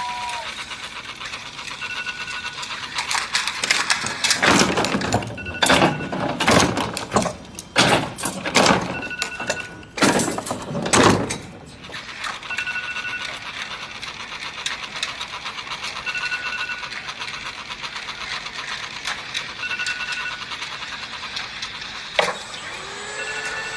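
A phone alarm beeping: a short beep about every three and a half seconds, with a run of loud bangs and clattering through the first half. Near the end there is a sharp knock, then a steady hum starts.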